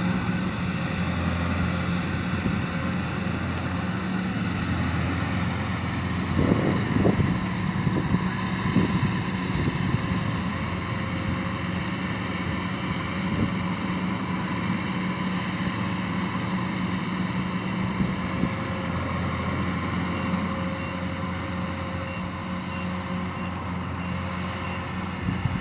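An engine running steadily at an even speed, with a few knocks between about six and nine seconds in.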